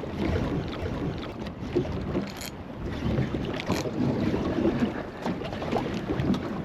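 Wind buffeting the microphone and water slapping against a small boat's hull as it rocks, with scattered light knocks and clicks.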